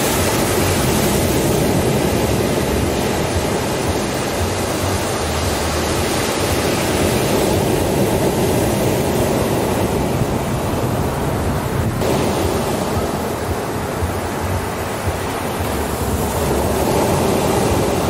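Ocean surf: waves breaking and washing up a sandy beach in a continuous rush, easing somewhat mid-way and building again near the end.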